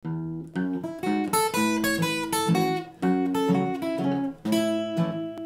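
Instrumental music on a plucked string instrument, a melody with chords, each note struck sharply and fading.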